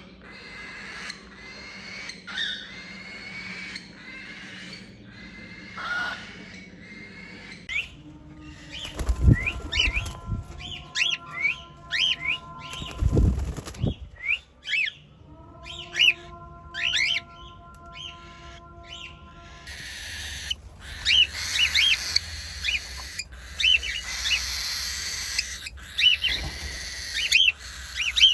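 Cockatiels chirping and squawking in quick, repeated high calls across several cuts. Through the middle a steady humming tone runs under the calls, and there are two heavy low thumps.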